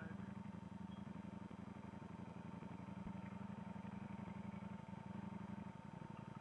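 Ducati Panigale V4S's V4 engine idling steadily in first gear as the bike rolls to a stop.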